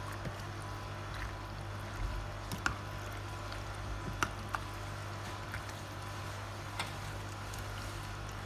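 A creamy macaroni fruit salad being stirred and folded with a large serving spoon: soft wet squelching of the dressed pasta, with a few sharp clicks of the spoon against the bowl, over a steady low hum.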